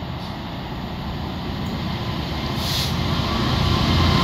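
Class 66 diesel locomotive 66560, with its EMD two-stroke V12 engine, approaching with a container freight train; the engine and rail noise grow steadily louder as it nears. There is a short hiss about two and a half seconds in.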